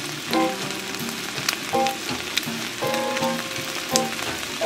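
Ham and egg-topped bread frying in a nonstick pan: a steady sizzling hiss, with a few clicks.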